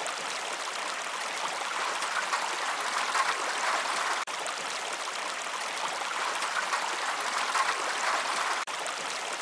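Steady rushing noise like running water from a stream, with a brief dropout about four seconds in and again near the end, as if a short recording were looping.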